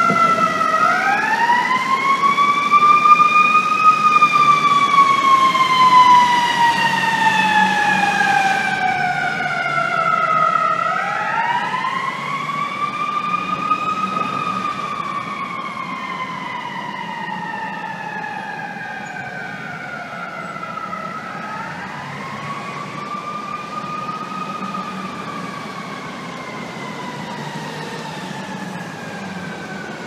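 Fire truck siren wailing three times, each wail rising quickly in pitch and then falling slowly. It is loudest at first and grows fainter with each cycle as the truck moves off, over a low steady hum.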